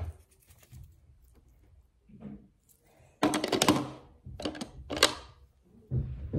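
Close handling noise: rustling, brushing and light knocks of a sleeve and hands moving right by the microphone while small makeup items are handled. Quiet at first, then a louder rustle about three seconds in, followed by a few shorter ones.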